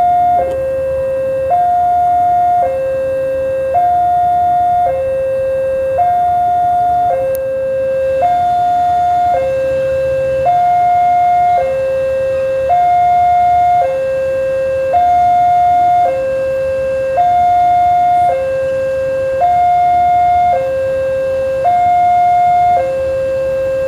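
Railway level-crossing warning alarm sounding a two-tone high–low electronic signal, each tone held about a second and repeating steadily, warning that a train is approaching the crossing.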